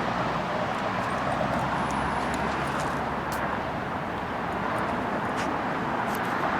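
Steady noise of heavy interstate freeway traffic, the tyres and engines of many cars blending into a constant rushing hiss.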